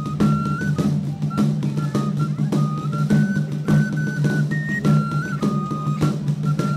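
Music: a steady drum beat under a high, simple melody of held notes that step up and down.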